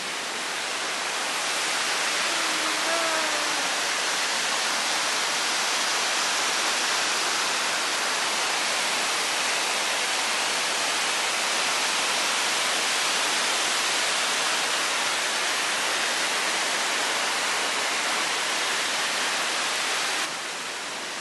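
Vickery Creek Falls: a steady rush of white water pouring over rocks, building over the first couple of seconds and dropping off sharply near the end.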